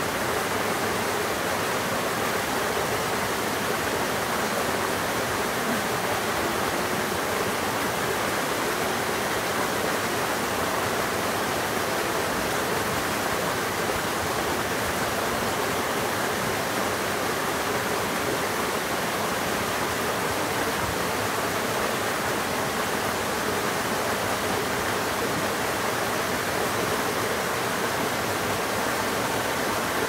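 Small cascade in a rocky mountain stream, water spilling over boulders into a shallow pool with a steady rushing sound.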